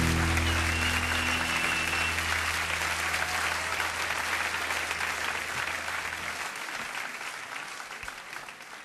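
Live concert audience applauding at the end of a song, the applause slowly dying away. Under it the band's last low chord rings on and fades out about six and a half seconds in.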